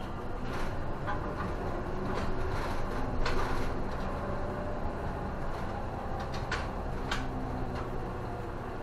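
Isuzu city bus running, heard from inside the cabin at the front: a steady engine and road drone, with a few sharp clicks from the bus's fittings.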